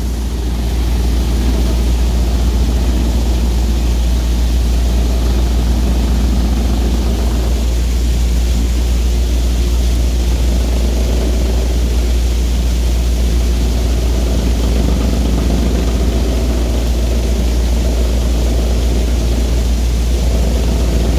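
Khokhar Harambha Deluxe 32x40 multicrop thresher running at working speed while bundles of dry crop are fed into its intake: a loud, steady mechanical drone, strongest in a deep low hum.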